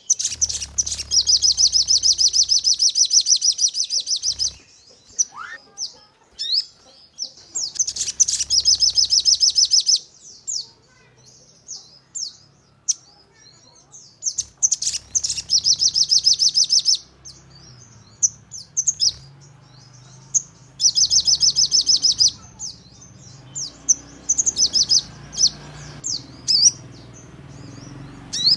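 Sogon bird singing in the rapid-fire 'nembak' style: four loud bursts of very fast repeated high notes, each lasting about one to three and a half seconds, with scattered short chirps and quick whistled glides in between.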